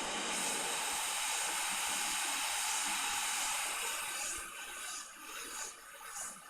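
Hot air rework station blowing a steady hiss onto a reballing stencil to melt the solder paste into balls; about four seconds in the hiss drops and wavers.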